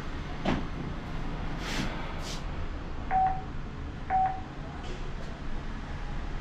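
Intercom unit beeping: two short, single-pitched beeps about a second apart, after a few faint rustles, while room numbers are being dialled on the system.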